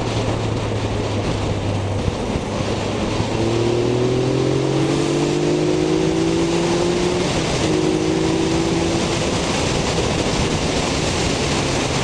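Yamaha XSR900's inline-three engine pulling under a gentle acceleration, its note rising slowly, with a brief dip about seven seconds in, over a heavy rush of riding wind on the helmet microphone.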